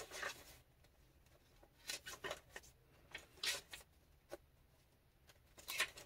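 Paper pages of a handmade junk journal being turned and handled: a few short, soft rustles and swishes of paper, with a light tap a little past the middle.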